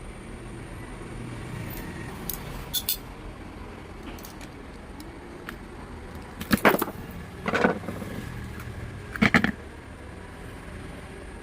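Three loud knocks a second or two apart, with a few lighter clicks before them, from tools striking a ceiling fan's bearing assembly to drive the bearing out without a puller.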